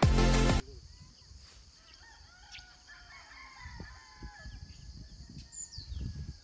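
Electronic intro music cuts off about half a second in, then faint roosters crowing, several overlapping calls, over a steady high insect drone, with wind rumbling on the microphone.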